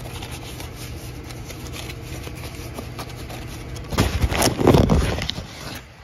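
Handling noise of parts being rummaged through by hand: light rustling and small clicks, then about four seconds in a loud scraping rub lasting under two seconds, all over a steady low hum.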